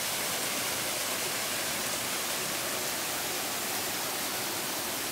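Small waterfall rushing steadily as water pours over rocks into a stream.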